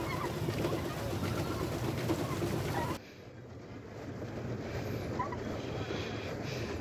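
Water splashing and churning under a pedal boat as it is pedalled. About three seconds in this cuts off abruptly to a quieter open-water ambience with faint bird calls.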